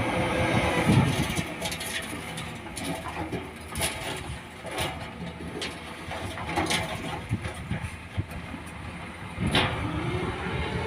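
Heavy diesel construction machinery running, with several sharp knocks.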